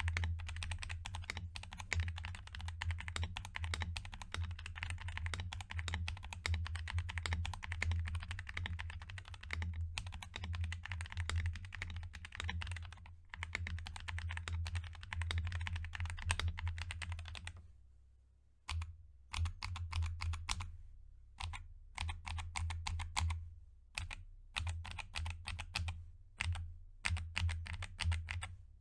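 Typing on a Glorious GMMK mechanical keyboard built with lubed Gazzew Boba U4T tactile switches and Ducky Skyline keycaps. Fast, continuous keystrokes run for a while, break off briefly about two-thirds of the way through, then come back as slower, separate bursts of keypresses.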